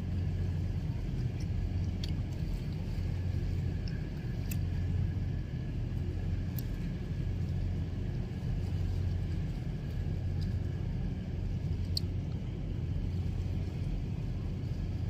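A steady low engine rumble with a deep hum that swells and eases slowly, a faint steady whine above it and a few light clicks.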